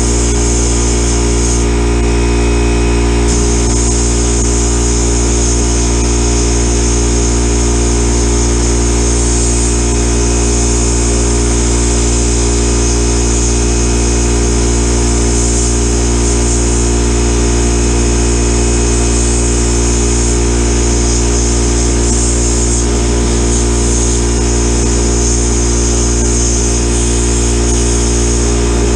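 Sandblast cabinet blast gun hissing steadily as abrasive media etches a small raw metal bracket before coating, over a steady low machine hum. The hiss drops out for a moment about two seconds in.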